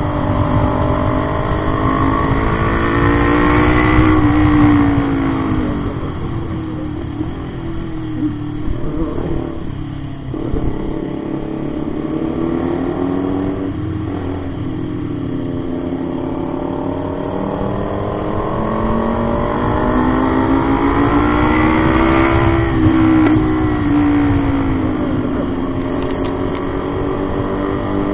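Motorcycle engine under way. Its pitch climbs as it accelerates over the first few seconds, drops back, then climbs again from about halfway before easing off near the end. Wind buffets the microphone.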